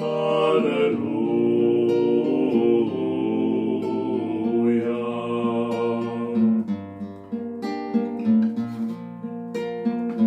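Two male voices sing long held notes in harmony over a classical guitar. About six and a half seconds in the voices end, and the guitar goes on alone with picked and strummed chords.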